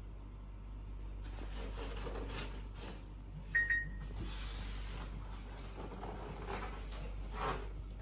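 Handling sounds from a collectible statue and its packaging: rustling and light knocks, with a brief sharp squeak-like sound about three and a half seconds in, over a steady low hum.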